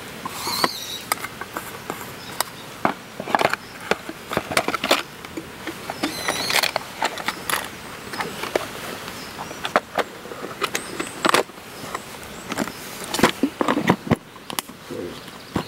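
Titanium camping cups clinking and a clear plastic storage box clattering as they are handled and packed: an irregular run of sharp clicks and knocks, some with a brief metallic ring. A cluster of louder plastic knocks comes near the end as the box is closed.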